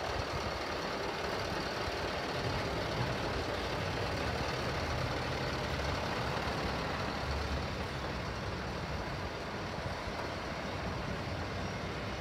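Parked rigid freight truck's engine idling with a steady low rumble, easing slightly about two thirds of the way through.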